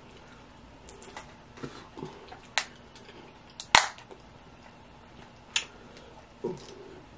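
Steamed blue crab shell cracking and snapping as it is pulled apart by hand: a few sharp cracks, the loudest a little past halfway, with softer picking sounds between.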